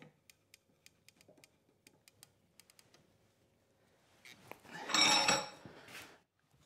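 Metal scraping and clanking with a short metallic ring, about two seconds long and loudest about five seconds in, as the red-hot leaf-spring bar is worked in the vise jaws. Faint, rapid ticking comes before it.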